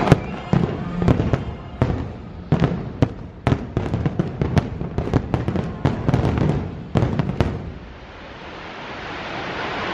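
Aerial fireworks shells bursting in a rapid volley of sharp bangs that dies away about seven and a half seconds in.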